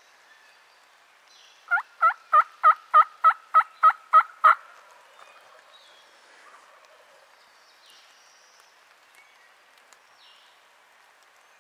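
A turkey yelping: a run of about ten evenly spaced yelps over about three seconds, starting a couple of seconds in.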